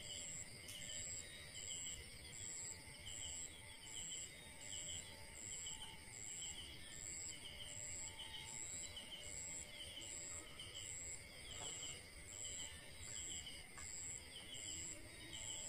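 Night insects chirping in a steady rhythm: a high chirp a little more than once a second, alternating with a lower, shorter trill.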